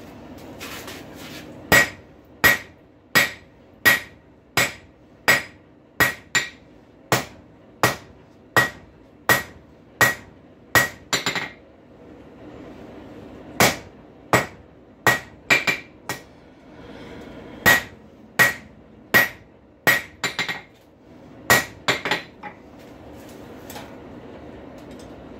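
Blacksmith's hammer striking a hot rail spike on an anvil, about one and a half blows a second, each with a ringing ping. The blows stop for about two seconds midway, then resume in uneven groups. The spike's head is being flattened to fit box jaw tongs.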